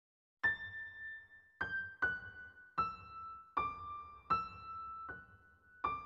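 Background music: a slow melody of single piano-like keyboard notes, about eight of them, each struck and left to ring, mostly stepping downward in pitch. It begins after a brief moment of silence.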